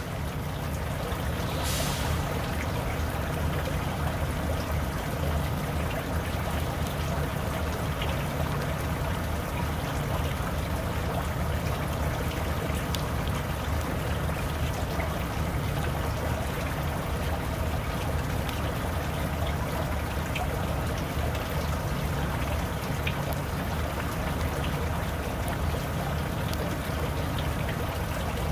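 Steady low rumble of an idling diesel truck engine, with a slight regular pulse, under an even hiss.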